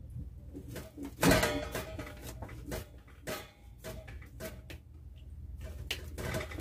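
Soft knocks and rustling as kneaded dough is pressed by hand into a plastic container, with the loudest knock about a second and a half in.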